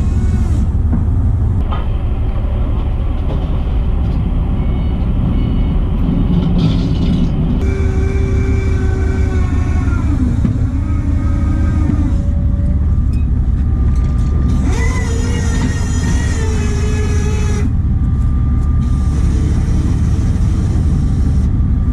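Fishing boat's engine running with a steady low rumble, with higher pitched tones coming and going over it, the strongest about fifteen to seventeen seconds in.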